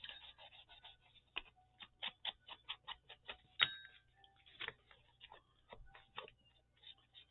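Rapid, irregular light tapping of an ink pad being dabbed around the edges of paper, several taps a second, with one sharper tap about halfway through.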